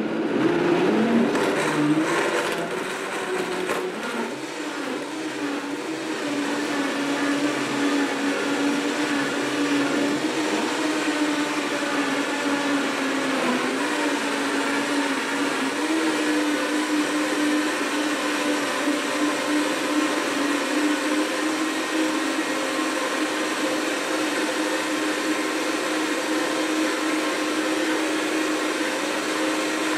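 A Blendtec Total Blender and a Vitamix 5200-type blender running at the same time on a green smoothie with ice cubes, on a second blending cycle because the first left it not yet smooth. Loud: the pitch wavers for the first few seconds as the blades churn the contents, then settles into a steady whir.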